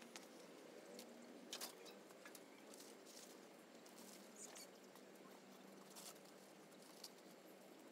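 Faint, scattered snaps and rustles of dry branches being handled, with light footsteps on stony ground.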